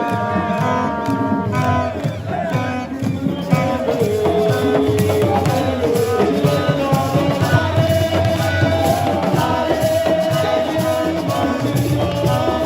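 Music with singing over rhythmic percussion.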